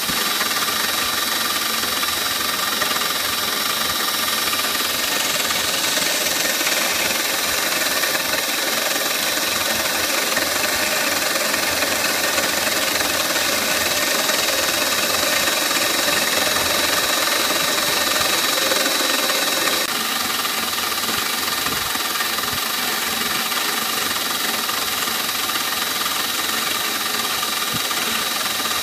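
CNC milling machine spindle running with a steady high whine while the end mill cuts a clear plastic block, a continuous hiss of cutting under it, during a finishing pass that cleans up the rough cut. The cutting sound turns brighter about five seconds in and drops a little about twenty seconds in.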